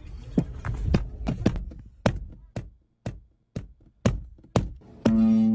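A series of sharp knocks and thumps, coming about twice a second, then acoustic guitar starts strumming near the end.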